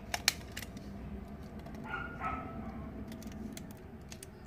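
Sharp plastic clicks and handling taps as a stripped copper wire is pushed into the push-in terminal of a single wall switch, the loudest click in the first half-second. Two short, faint pitched calls come about two seconds in over a low steady hum.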